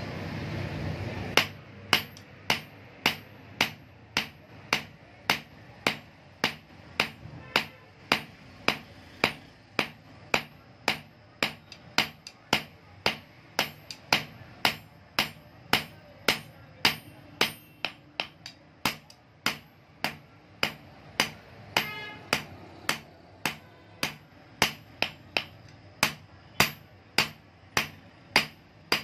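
A hand hammer forges a red-hot steel knife blade on an anvil block, striking steady blows at about two a second, each with a short high metallic ring. The blows start about a second in, after a moment of low rushing noise from the forge.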